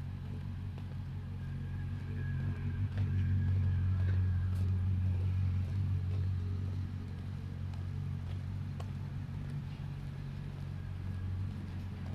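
Road traffic on a city street: a steady low engine rumble of passing cars, swelling for a few seconds about three seconds in.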